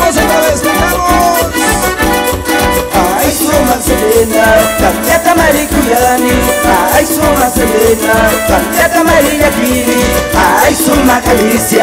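Live dance music with a steady beat and a melody line.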